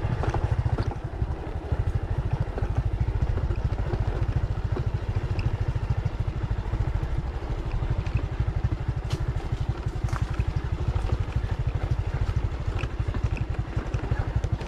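Motorcycle engine running steadily at low speed, with a few sharp clatters from the rough dirt track.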